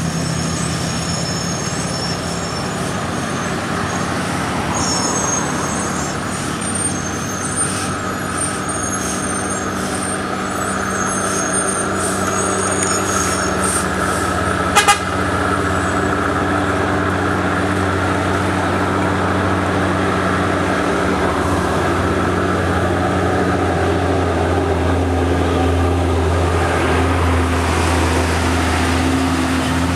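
Heavy trucks' diesel engines running on a steep mountain road, a steady low drone that grows louder over the second half as a tanker truck passes close by. High chirping in the first half and a single sharp click about halfway through.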